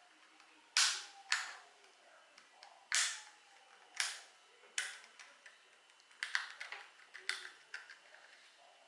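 Sharp plastic clicks and short scrapes as the front cover of a Yi 2 4K action camera is pried loose by hand and its clips let go: a loud click about a second in, then more at roughly one-second intervals, with a quick run of small clicks near the end.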